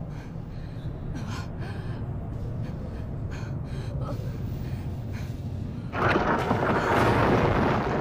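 A young woman gasping and breathing heavily over a low rumbling drone; about six seconds in, a loud hissing rush starts suddenly and becomes the loudest sound.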